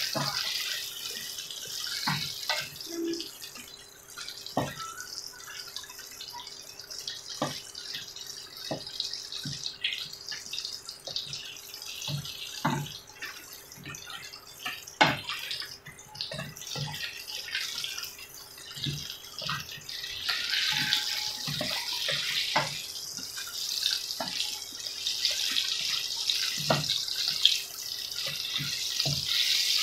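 Eggplant tempura strips deep-frying in hot oil in a wok: a steady sizzle that grows louder about twenty seconds in. Scattered light knocks come from a wooden spatula against the pan as the pieces are stirred.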